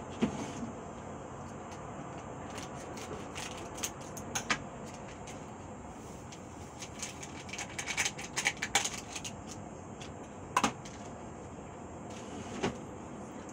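Light handling sounds as a sachet of chocolate drink powder is opened and emptied into a mixing bowl: scattered taps and clicks, a busier run of small clicks about eight seconds in, and a sharper knock near the end.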